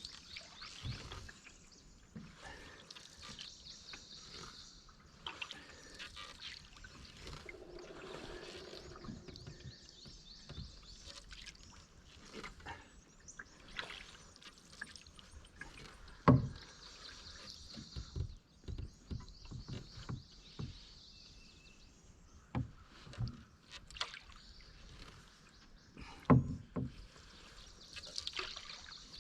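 Canoe being paddled: water dripping and trickling off the paddle, with scattered knocks against the canoe, two of them much louder, about halfway through and near the end.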